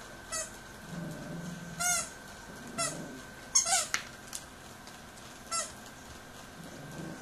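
A rubber squeaky dog toy squeaks about six times at irregular intervals as puppies bite and squeeze it, with a double squeak about three and a half seconds in.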